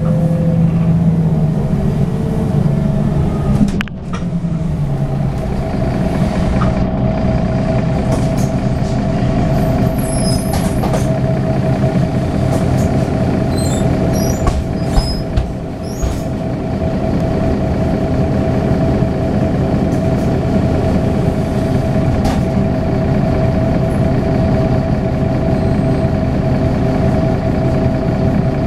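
Mercedes-Benz Citaro O530 bus's OM906hLA six-cylinder diesel heard from inside the bus. Its pitch falls as the bus slows over the first few seconds. It then idles steadily while the bus stands, with a few light ticks and clicks near the middle.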